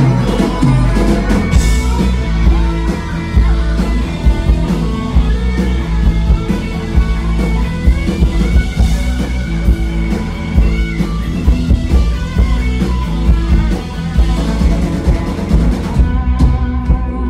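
Live rock band playing loudly: an electric guitar solo over drum kit and bass.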